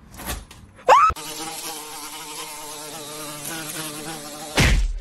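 Small toy quadcopter drone hovering with a steady, slightly wavering buzz. A short loud rising squeal comes about a second in, just before the buzz starts, and a loud burst of noise breaks in near the end.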